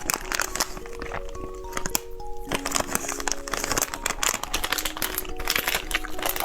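Crinkling and crackling of plastic candy wrappers being handled, with many sharp clicks, over background music with a simple melody of held notes.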